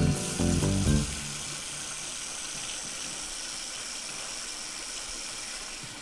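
Music plays briefly and stops about a second in; then water runs steadily from a bathroom tap into a washbasin, a continuous even hiss.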